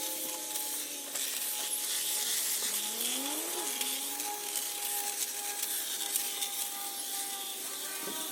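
Ego cordless multi-tool with a hedge trimmer attachment running: a steady electric motor whine over the hiss of the blades. Its pitch slides down and back up a few seconds in.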